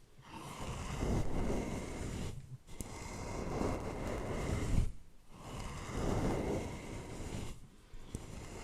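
A brush being swept over a microphone, up close, in long scratchy strokes. There are three strokes of about two seconds each, with short pauses between them, and a fourth begins near the end.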